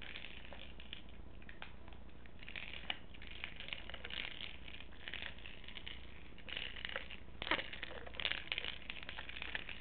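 Treat ball being nosed and pushed along a carpet by a small dog, giving irregular clicks and scuffing noises that grow busier in the second half.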